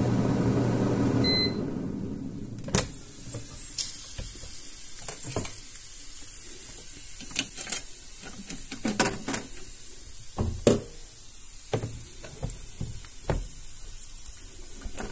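Britânia air fryer oven's fan running with a steady hum, then stopping about a second and a half in, with a short beep as the power button is pressed. Then a scattered series of clicks, knocks and metal clinks as the oven door is opened and the food basket is hooked with its handle tool and lifted.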